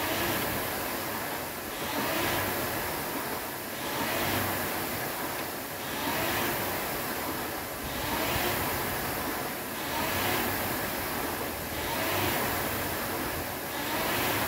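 Air rowing machine's fan flywheel whooshing with each pull, swelling and fading about once every two seconds with a short rising whir as the fan spins up at each stroke.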